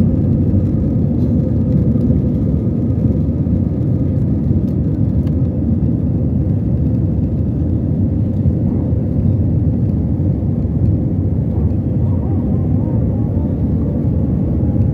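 Jet airliner's engines at takeoff thrust heard from inside the cabin: a loud, steady rush of engine and air noise with a steady hum, through liftoff and the start of the climb.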